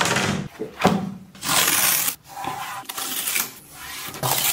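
Hands handling watercolour paper taped to a drawing board: a couple of light knocks in the first second, then several scratchy rubbing noises, the longest about a second and a half in.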